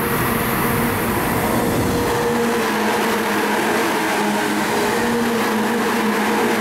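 Electric passenger train running past close by on the nearest track: a continuous rumble of wheels on rail, with a steady hum over it.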